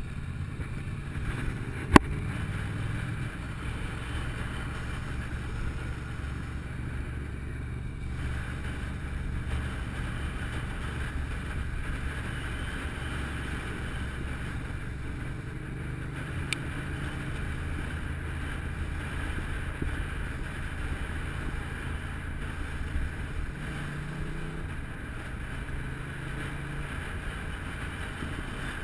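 Motorcycle engine running at low revs on a downhill ride, its note wavering a little, under a steady rush of wind over the camera microphone. A sharp click about two seconds in, and a fainter one later.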